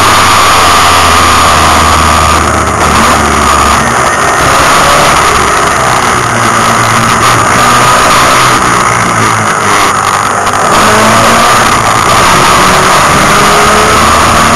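Mazda Capella race car's engine heard from inside the cabin, running hard at racing speed and very loud. The sound eases briefly twice, about three seconds in and again around nine to ten seconds, then pulls hard again.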